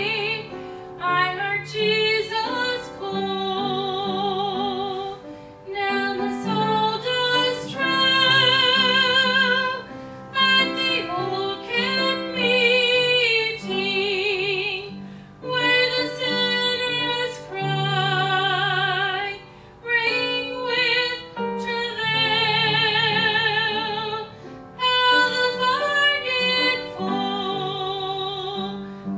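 Solo voice singing a gospel song over instrumental accompaniment, with wide vibrato on the long held notes.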